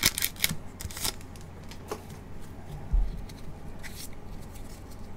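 A trading-card pack is opened by gloved hands and its cards handled: rustling of the pack wrapper and card stock. There is a quick cluster of sharp rustles in the first second, a few scattered ones after, and a dull thump about three seconds in.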